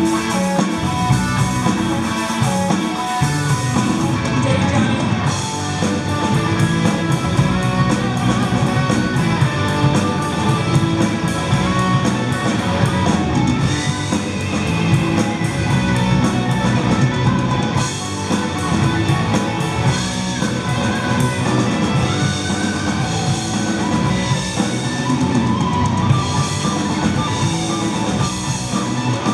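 Rock band playing a song, with guitar and a drum kit keeping a steady beat.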